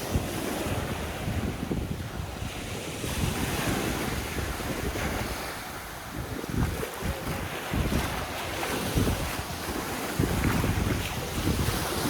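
Sea waves washing on the shore, a continuous surf hiss, with wind buffeting the microphone in an uneven low rumble.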